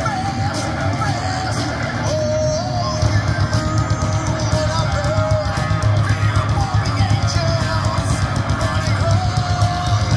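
Live rock band playing through a PA: electric guitar and drum kit with steady, dense drumming, and long wavering held notes carrying the melody above.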